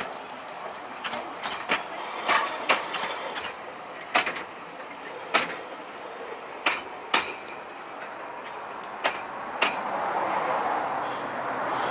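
Narrow-gauge train's wheels clacking over the rail joints as the carriages roll past, a dozen or so sharp clacks at uneven spacing. Near the end a steady rushing noise rises.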